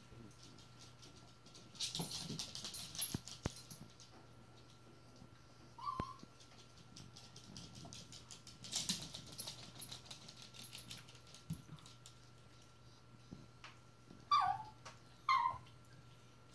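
Small dogs playing on a hard floor: bouts of scuffling and clicking, a brief high whimper, then near the end two loud yelps that fall in pitch, a second apart.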